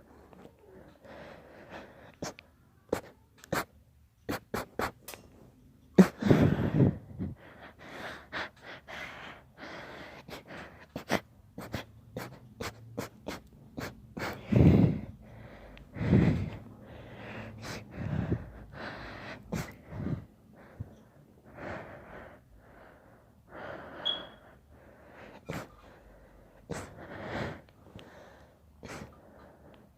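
A long run of quiet sneezes with sharp breaths and gasps between them. The strongest come about six seconds in and again around the middle, and many small clicks are scattered through.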